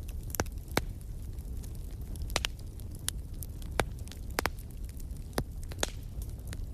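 Wood fire crackling in a fireplace: irregular sharp pops, roughly one or two a second, over a steady low rumble of the burning.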